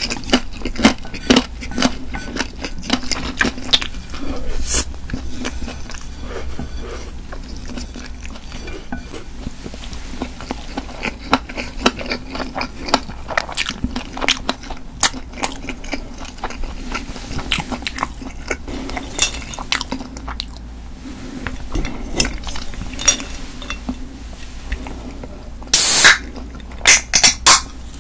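Close-miked chewing of crunchy stir-fried pork cartilage, with irregular crunches and clicks of utensils against dishes. A short, loud crackle comes near the end, followed by a few sharp clicks.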